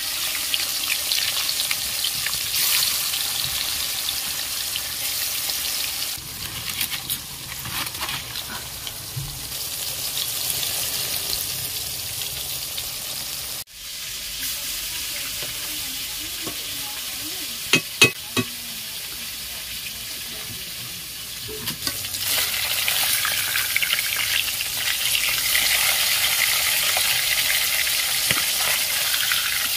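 Fish pieces frying in hot mustard oil in a steel kadhai: a steady sizzle that grows louder in the last third. A few sharp clicks, the loudest sounds, come a little past the middle.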